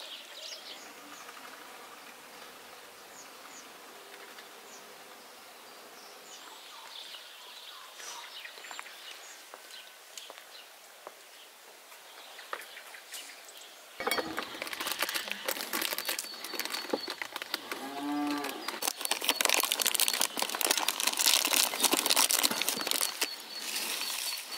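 Quiet outdoor background with faint bird chirps. About 14 s in it changes to loud crinkling and rattling, typical of a foil tea packet being opened and handled and loose black tea leaves poured. A cow moos once briefly about 18 s in.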